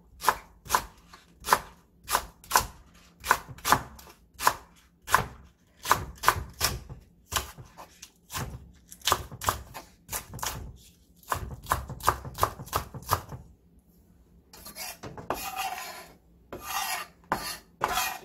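Chef's knife slicing through a green onion and striking a wooden cutting board, about two cuts a second. Near the end the cutting stops and the knife blade scrapes the slices across the board.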